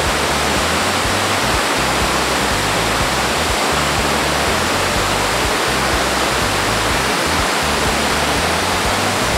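Elephant Falls' first tier: water pouring steadily down a rock face into a pool and tumbling over rocks below, an even, unbroken rush of water.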